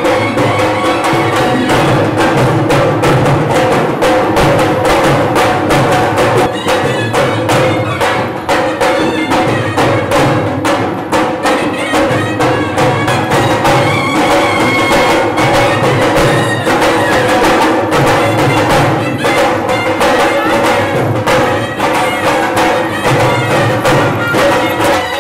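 Lively traditional Gujarati folk dance music, with fast, even drumming under a held melody line.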